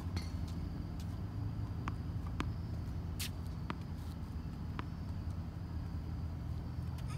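Tennis ball bounced several times on a hard court before a serve: a few light, sharp taps at uneven spacing over a steady low hum, with a brief scuff about three seconds in.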